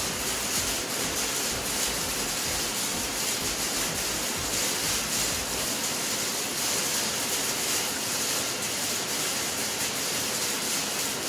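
Steady, even background hiss, with faint low handling noises in the first half.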